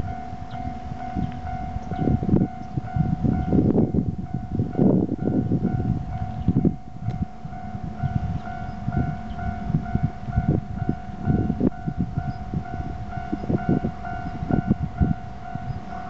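Japanese level-crossing warning alarm ringing, a steady electronic tone with a rapidly repeating ding, under irregular low gusty rumbling.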